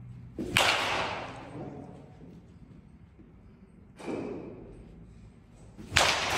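Baseball bat hitting pitched balls: two loud cracks, about half a second in and near the end, each trailing off over about a second, and a lighter knock about four seconds in.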